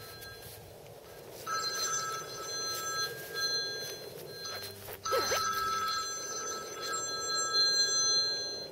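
Cell phone ringing: an electronic ringtone of several high tones sounding together in repeated bursts. It is faint at first, louder from about a second and a half in, and pauses briefly twice.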